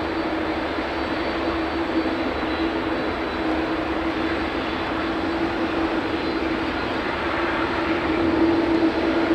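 Jet engines of taxiing airliners, a McDonnell Douglas MD-11 freighter passing close with an Airbus A380 behind it, running at taxi power. They make a steady rushing hum with one held low tone, growing a little louder near the end.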